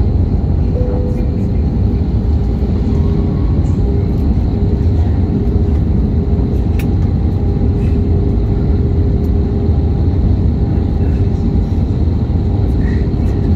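Steady cabin noise of an Airbus A320-232 in flight during approach: a low rumble of airflow and its IAE V2500 engines, with a faint steady hum.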